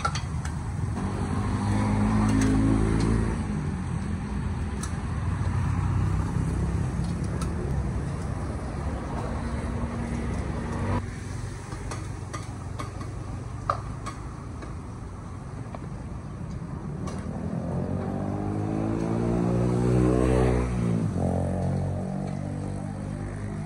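Motor vehicles passing on the street beside a wok stall. Twice an engine climbs in pitch as it passes, the second near the end, rising to its loudest and then cutting off. Under it is the sizzle of eggs frying in oil in a wok, with occasional sharp clinks of a metal spatula or ladle against the wok.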